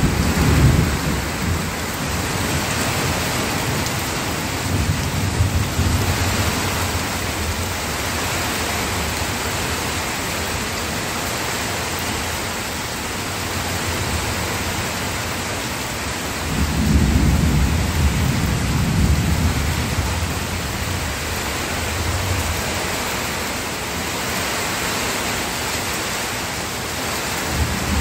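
Steady rain falling, with low rumbles of thunder rolling in and out, the longest and loudest about seventeen seconds in.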